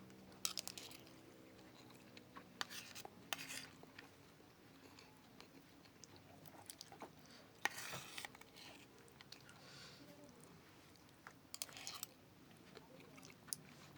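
A person chewing and biting pepes ikan mas (carp cooked in banana leaf), heard close up as short bursts of soft wet clicks and crunches every few seconds.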